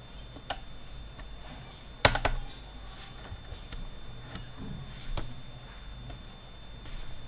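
A few scattered computer mouse clicks, the loudest about two seconds in, over a faint steady high-pitched whine.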